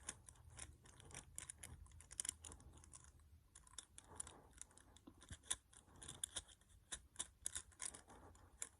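Rubik's Cube being twisted: faint, irregular plastic clicks as its faces are turned.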